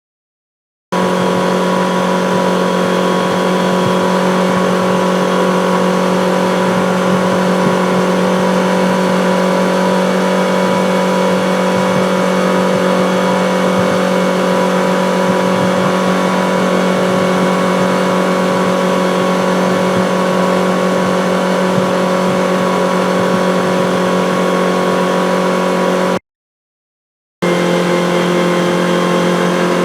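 Outboard motor of a sport boat running at high speed, holding a steady high engine note. About 26 seconds in it cuts off for a second of silence, then a second high-speed run starts at a slightly different pitch.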